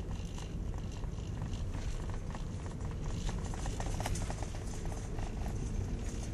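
Steady low rumble of a moving car heard from inside the cabin: road and engine noise.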